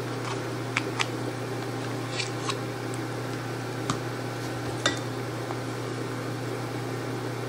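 A metal spoon tapping and scraping against a stainless steel mixing bowl and a plastic tub while sour cream is spooned out: about half a dozen light clicks in the first five seconds. A steady low electrical hum runs under it.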